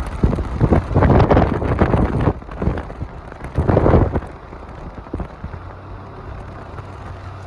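Wind buffeting the microphone in irregular gusts, loudest in two stretches within the first four seconds, then settling to a steadier rush.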